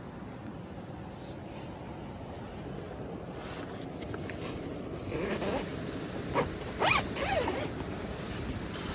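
A zipper, most likely on a tent or bag, pulled in a few quick strokes about two-thirds of the way through, over a steady low rushing noise.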